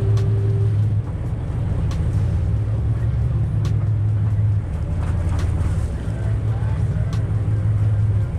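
Charter catamaran's engines running with a steady, loud low drone, with a few sharp clicks on top and faint voices.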